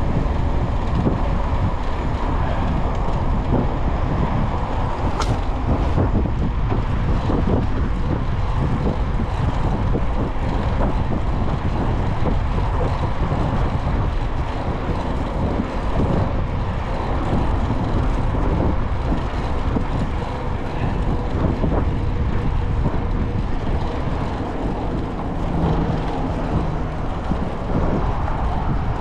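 Steady, loud wind and rolling noise from riding a mountain bike, the wind rumbling over the microphone, with a single sharp click about five seconds in.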